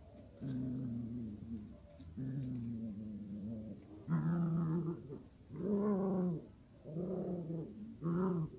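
Puppies growling while they play-fight, a Rottweiler puppy and a mixed-breed puppy: about six drawn-out growls, louder and higher from about four seconds in.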